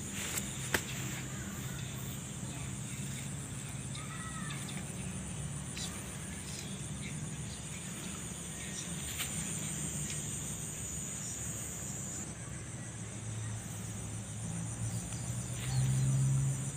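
Steady, high-pitched chorus of insects trilling in rice paddies, over a low steady hum that grows louder near the end. Two sharp clicks come about half a second in.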